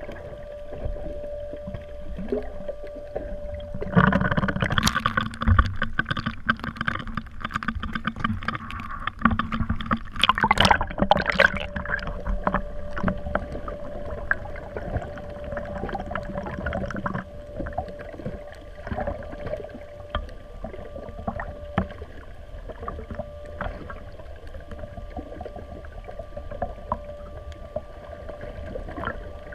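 A small boat under way: a steady motor hum, louder and fuller from about 4 to 12 seconds in, with knocks and splashing of water.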